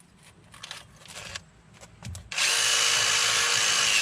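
A few light handling clicks, then about two seconds in a power drill starts and runs steadily at full speed, scouring rust out of the rear brake bracket where the pad clips sit.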